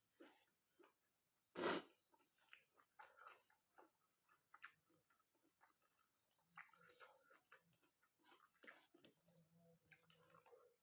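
Close, faint chewing and wet mouth smacks from someone eating chicken curry with rice, in short irregular clicks, with one louder sharp bite or smack a little under two seconds in.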